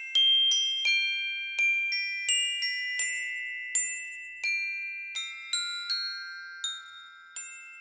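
Background music: a gentle melody of high, bell-like struck notes, about two a second, each ringing and fading away.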